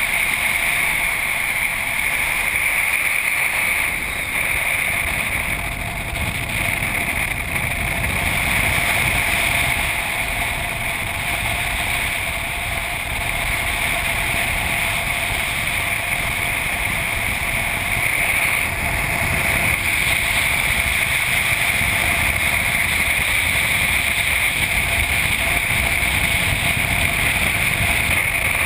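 Subaru driving along a paved road, heard from a camera mounted on the outside of the car: steady wind rush over the camera with engine and tyre noise.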